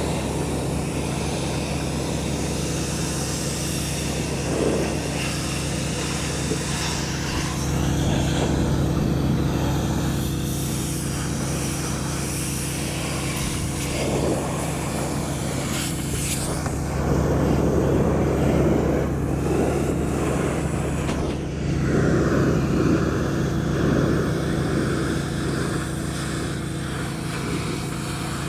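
Pressure washer engine running steadily, with the hiss of the high-pressure water spray on the metal roof swelling and easing several times.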